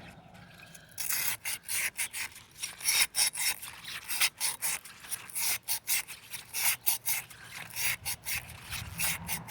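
Cut glass bottle rim rubbed back and forth on wet coarse silicon carbide sandpaper to grind off its sharp edge. The strokes begin about a second in and come about two or three a second.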